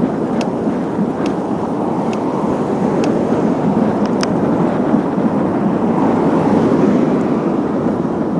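Wind buffeting the microphone and tyre noise on asphalt from a road bike ridden along a street, a steady loud rush with a few light sharp ticks about once a second in the first half.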